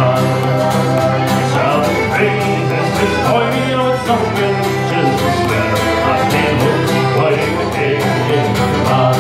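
Live acoustic folk band playing an instrumental passage: strummed acoustic guitar and plucked banjo over a steady bass note.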